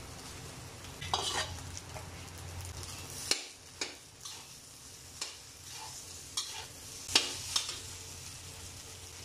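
Metal spatula scraping and clacking against a stainless steel wok while stir-frying rice with scrambled egg, over a light sizzle. The sharp scrapes come irregularly, several in a row.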